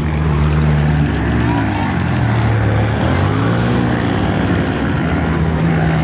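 Off-road buggy engines driving past on a dirt road, the engine note rising and falling several times as they rev, over a steady lower engine drone.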